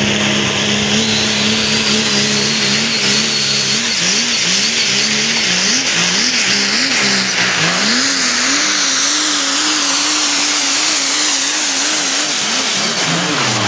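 A super stock diesel pulling truck, a Ford Super Duty, running at full throttle down the track with the sled behind it. The engine note holds steady, wavers up and down several times, then climbs and holds, and falls away near the end as the pull finishes. A high whistle runs over the top.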